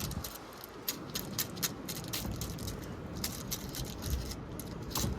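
Small wired-up washing machine spinning, rattling with irregular clicks and knocks, a few a second, over a low rumble.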